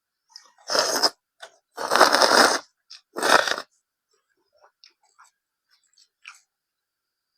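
Close-up eating sounds: three loud crunching bites in the first few seconds, then soft, scattered chewing clicks.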